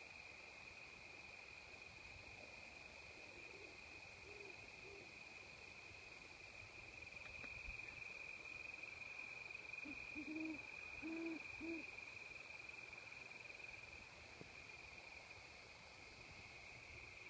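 Owl hoots: a faint series of three low hoots a few seconds in, then a clearer series of four near the middle. A steady, high-pitched chorus of crickets runs underneath.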